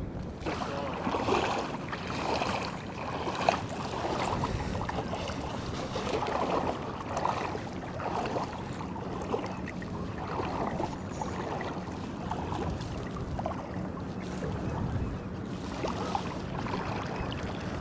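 Outdoor waterside noise: wind buffeting the microphone over a steady wash of water, with a faint low hum and a few light knocks.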